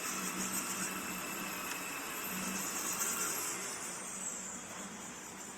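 Steady mechanical whir of a CNC router being jogged with its hand wheel, with a high whine that slides down in pitch about three and a half seconds in.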